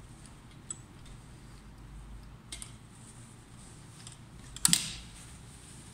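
Industrial sewing machine's motor humming low and steady under scattered light clicks, with one short louder burst about three-quarters of the way through as the collar fabric is stitched and guided under the presser foot.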